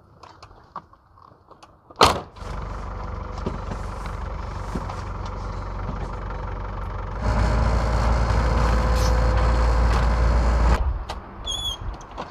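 Diesel engine of a Hyundai 2.5-ton truck running, heard from inside the cab: a sharp thump about two seconds in, then a steady low rumble that gets louder about seven seconds in and drops away near the end, followed by a few short high chirps.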